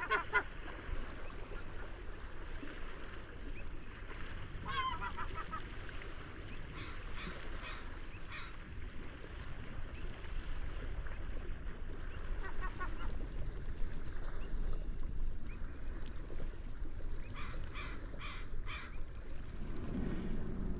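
Gulls calling on and off: short runs of laughing calls and high, falling squeals, over a steady low background rumble.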